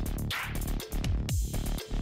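Electronic music with a steady beat and deep drum hits that drop in pitch.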